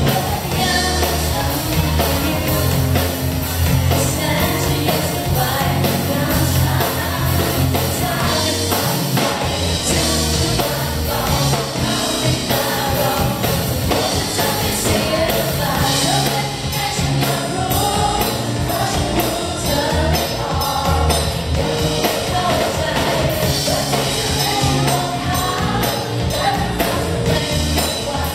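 A woman singing a pop-rock song live into a microphone, backed by a band with electric guitar.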